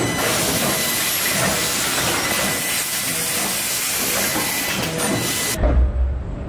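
Steady hissing noise of a robotic car body-shop line, with a faint steady whine in it. Near the end it gives way abruptly to a duller, low rumble.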